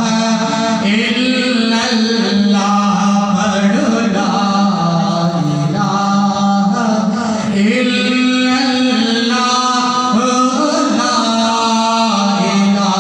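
A man chanting an unaccompanied Islamic devotional recitation into a microphone, in long held, melodic notes with no pauses.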